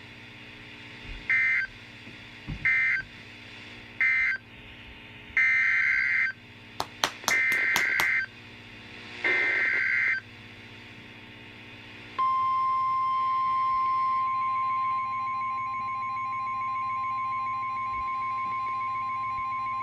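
Emergency Alert System SAME data tones: three short warbling bursts (the end-of-message code closing one alert), then three longer bursts (the header of the next alert), with a quick run of clicks about seven seconds in. About twelve seconds in, the steady 1050 Hz National Weather Service attention tone begins and holds.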